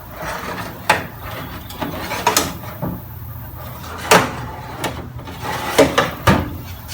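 Metal drawers of a vintage rolling tool chest being slid open and shut, with sliding rumble and several sharp knocks as they stop, about five in all. They run acceptably but not perfectly smoothly.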